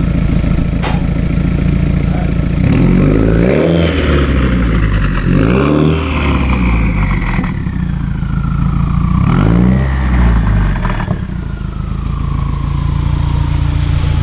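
2015 Subaru WRX's turbocharged flat-four running through a Tomei Expreme Ti titanium single-exit catback exhaust: idling, blipped three times, each rev rising and dropping back quickly. A high whine falls slowly in pitch through the middle of the revs.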